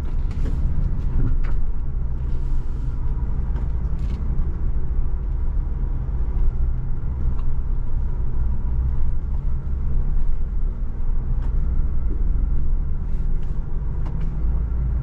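Off-road vehicle engine running steadily, a low rumble, with a few short knocks in the first few seconds.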